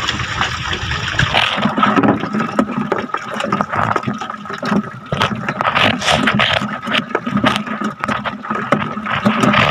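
Irregular knocks, scrapes and water splashes of a fishing net and plastic tubs being handled on a boat deck, over a steady hum.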